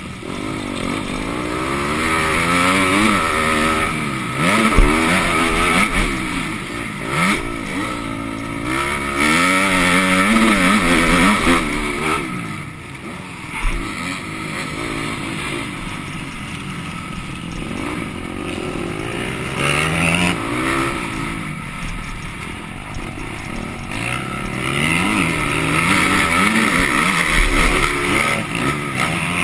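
MX2-class motocross bike engine revving hard and dropping back again and again as the rider works the throttle and shifts through the gears, its pitch rising and falling every second or two, with a short easing-off of the throttle about halfway through.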